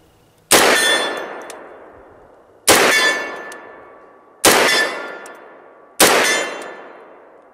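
Four shots from a Tromix .458 SOCOM AR-15 carbine, fired about two seconds apart. Each is a sharp crack followed by a ringing tail that fades over about two seconds.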